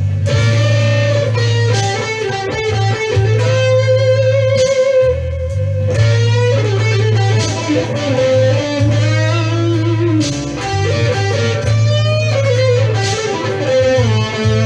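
Electric guitar playing a blues lead line with string bends and vibrato over a steady backing bass line.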